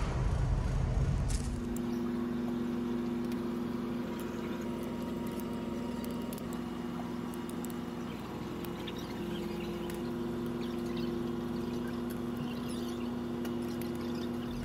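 Steady low hum of a car ferry's machinery running through the onboard restaurant, with faint clinks of dishes and cutlery. A louder low rumble stops about a second and a half in, leaving the steady hum.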